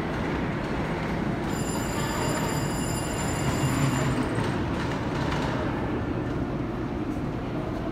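A train running on the rails, a steady rumble with a high, steady whine from about a second and a half in until about four seconds in.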